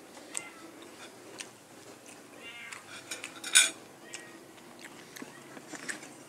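Fork and spoon clinking against a plate in a few scattered clicks, the loudest a sharp clink about three and a half seconds in. A short high-pitched cat meow comes about two and a half seconds in.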